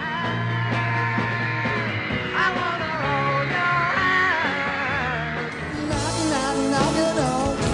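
Rock music with a male voice singing, cut from archive song excerpts; it changes abruptly to a different recording about six seconds in.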